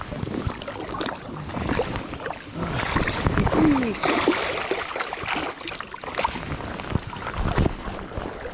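Uneven splashing and sloshing of river water, with scattered small knocks and clicks.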